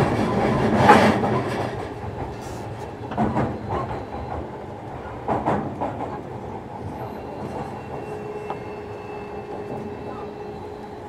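Onboard running sound of a JR Kyushu 305 series electric train, recorded in a motor car: wheel and track noise with scattered rail-joint clicks, quietening over the first few seconds. A steady whine comes in about seven seconds in.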